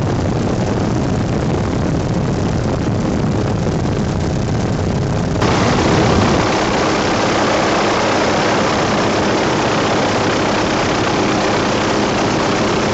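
Helicopter in flight, heard from on board: a loud, steady noise of engine, rotor and rushing air. It turns brighter and a little louder about five seconds in.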